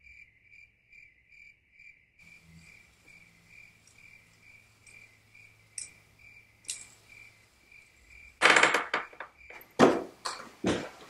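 Cricket chirping steadily, about three chirps a second. From about eight seconds in, a run of heavy footsteps thumps down a wooden staircase, louder than the chirping.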